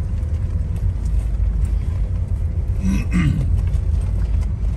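Steady low rumble of a car driving slowly, heard from inside the cabin, with one short voice sound about three seconds in.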